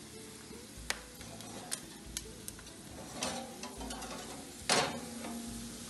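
Freshly roasted pork cubes sizzling in a glass baking dish as it is pulled out of a small electric countertop oven, with light clicks and a louder knock of the dish against the wire rack a little under five seconds in.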